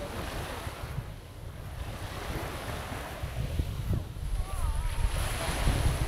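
Sea waves washing onto a sandy beach, with wind rumbling on the microphone. The wash swells loudest near the end.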